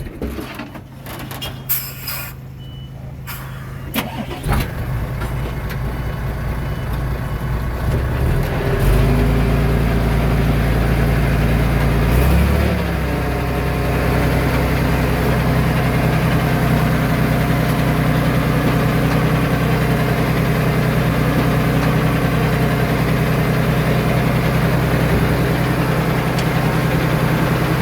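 Heavy diesel engine of earthmoving machinery running. A few sharp clicks and knocks come first, then the engine builds over several seconds and settles into a steady low hum from about twelve seconds in.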